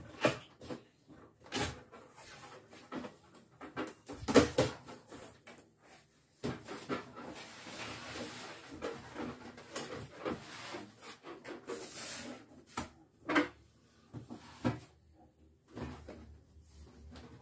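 Large cardboard box being opened by hand: flaps pulled back and cardboard and packaging rustling, with a series of knocks and scrapes, the loudest about four seconds in, and a longer stretch of rustling from about six to twelve seconds in.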